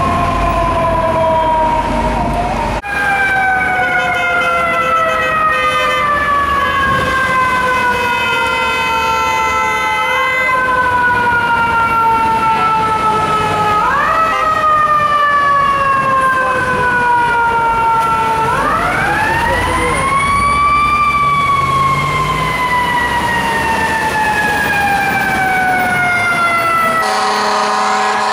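Fire apparatus siren, a mechanical wind-up siren of the kind FDNY rigs carry, sounding in long slow wails. Each time it climbs to a high whine it winds down gradually in pitch, and it is brought up again about ten, fourteen and eighteen seconds in, over steady street traffic.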